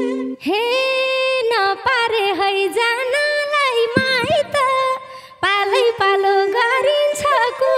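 A woman singing a Nepali lok dohori line solo and unaccompanied, in long held, wavering notes; she breaks off briefly about five seconds in and then sings on.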